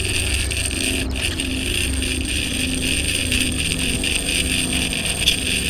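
Low wind rumble on the microphone, with a baitcasting reel being cranked: a faint steady whir with rapid light ticks from the gears as line is wound in.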